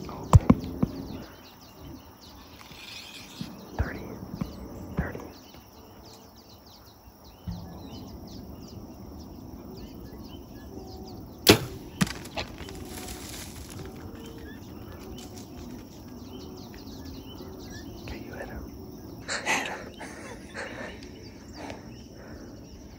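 Compound bow being shot: sharp snaps of the released string, the loudest about half a second in and again about eleven and a half seconds in, with smaller clicks around four to five seconds and another cluster around twenty seconds.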